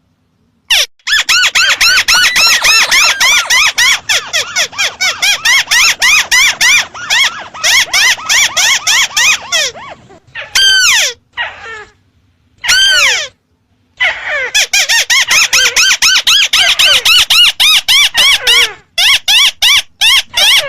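Ruddy-breasted crake (tikusan merah) calls: long runs of short, rapid, clipped notes, about five or six a second, broken by two brief pauses around the middle, where a few longer descending calls stand out.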